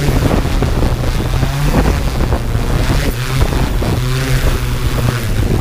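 Yuneec Typhoon G quadcopter's electric motors and propellers running with a steady low hum, picked up by the GoPro mounted on the drone, with rotor wash buffeting the microphone.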